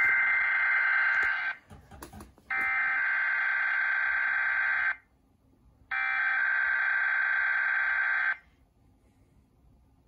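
EAS encoder sending the SAME header of a Required Weekly Test: three identical bursts of buzzy digital data tones, each about two and a half seconds long with a second's pause between, the first already under way. This is the coded header that opens an Emergency Alert System message.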